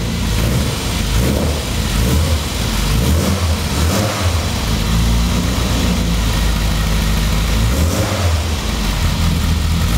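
1991 Rover Mini Cooper's A-series four-cylinder engine running just after starting from cold after a week standing, its speed rising and falling.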